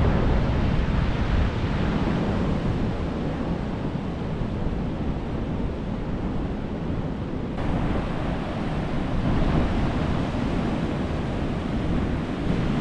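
Ocean surf washing against a rocky shore, swelling and easing as the waves come in, with wind rumbling on the microphone.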